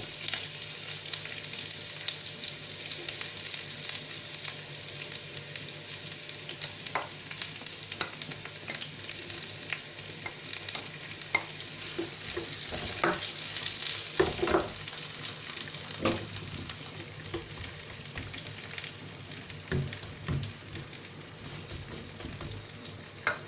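Sliced onions sizzling steadily in hot oil in a pot, with scattered clicks and knocks of a spoon stirring them against the pot.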